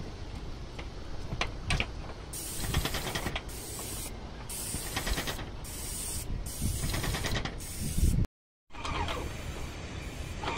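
Paint spray gun hissing in short repeated bursts as it is triggered on and off over a steel roof, with a low rumble and occasional clicks underneath. The sound drops out for a moment near the end.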